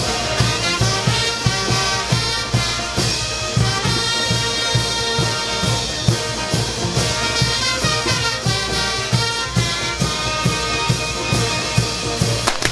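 Brass band music with drums keeping a steady beat.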